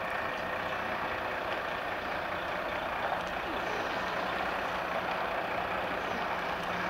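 Articulated lorry's diesel engine running steadily as the tractor unit and curtainsider trailer move slowly across the yard.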